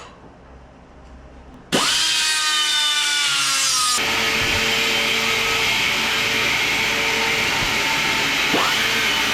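Small angle grinder switched on about two seconds in, its whine rising fast as it spins up. From about four seconds a steady harsh grinding as the wheel works into the metal, with a brief dip in pitch near the end.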